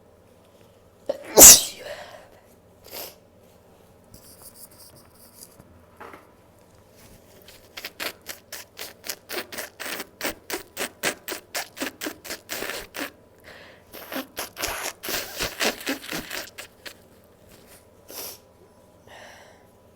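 A woman's single loud sneeze about a second and a half in, with a smaller follow-up noise a moment later. From about seven seconds on there is a long run of quick, short noises at about three a second, breaking off briefly partway through.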